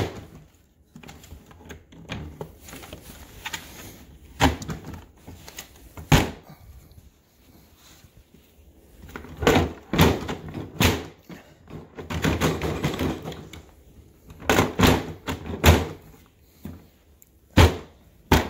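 Hard plastic Ryobi LINK modular tool boxes being handled, knocked and pressed together in attempts to lock a small box onto the stack. Irregular clunks and clicks, single ones at first and then in clusters, with a stretch of plastic scraping in the middle. The boxes are not locking, which the owner puts down to the small box.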